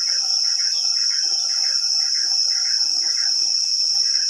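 Steady, high-pitched insect chorus, with a second chirping call pulsing about twice a second underneath.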